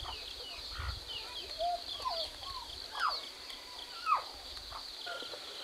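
Chickens calling around the feeding spot with a few short, steeply falling squawks, the loudest about four seconds in, over a steady high drone of insects.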